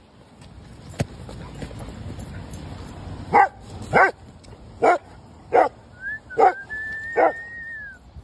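Golden retriever barking in play: six sharp barks, under a second apart, starting a few seconds in, with a high, thin whine held for about two seconds near the end.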